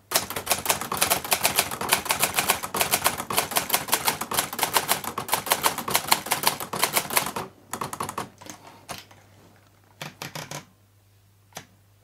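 Hermes 3000 manual typewriter being typed on quickly: a rapid, even run of keystrokes as the type bars strike the platen. It lasts about seven and a half seconds, then thins to a few scattered strikes and clicks.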